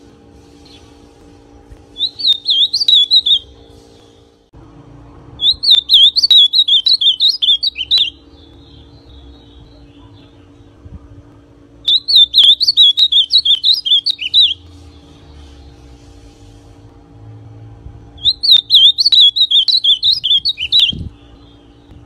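Young male ultramarine grosbeak (azulão), still in brown plumage, singing four short, rapid warbling phrases several seconds apart.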